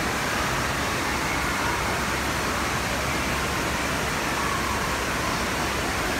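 Steady, even rushing din of an indoor water park hall, with faint distant voices now and then.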